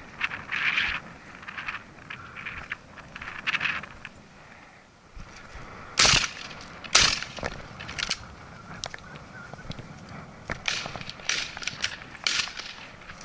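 Two shotgun shots about a second apart, fired from an SKB 505 over-and-under shotgun at a thrush. Softer rustles come before them and scattered light clicks after.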